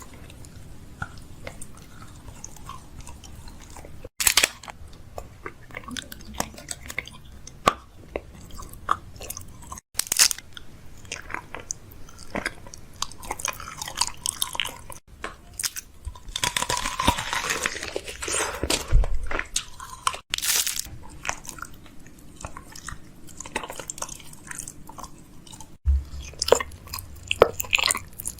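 Crunchy chewing and biting, a dense run of small crackles and snaps, broken by abrupt cuts about every five seconds.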